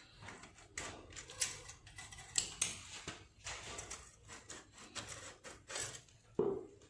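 SC Project slip-on muffler being twisted and pulled off a motorcycle's link pipe, with irregular metal scraping and clinking at the slip joint. A duller knock comes near the end.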